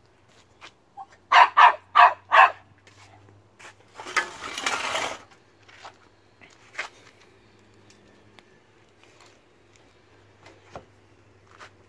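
A chihuahua barks four times in quick succession, hunting a chipmunk. A burst of rustling noise about a second long follows.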